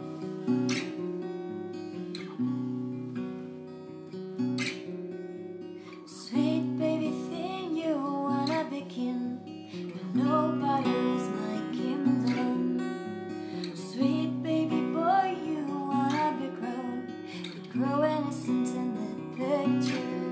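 Acoustic guitar strummed through an instrumental passage of a slow song. About six seconds in, a wordless vocal melody joins it.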